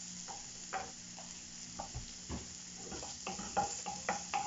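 Chopped onion, garlic and ginger sizzling in a little hot oil in a nonstick wok over a high flame. A wooden spatula stirs them, scraping and tapping the pan at irregular moments, more often in the second half.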